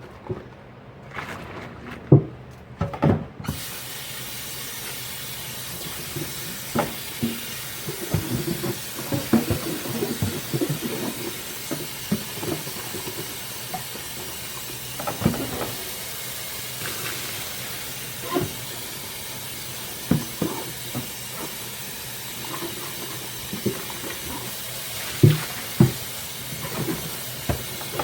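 Dishes being washed by hand at a kitchen sink: a tap is turned on about three seconds in and water runs steadily, with scattered knocks and clinks of dishes and utensils.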